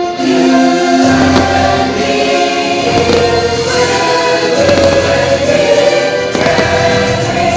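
Fireworks-show music with a choir singing long held notes, and firework bursts popping through it from about a second in.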